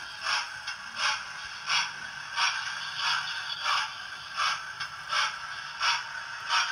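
Hornby OO-gauge model of the LNER W1 locomotive running slowly along the track: a steady mechanical whir with a short, regular pulse about three times every two seconds.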